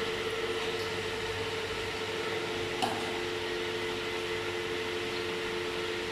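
Steady machine hum with a couple of held tones over a constant hiss, like a fan or motor running in the workshop. A single light tap about three seconds in.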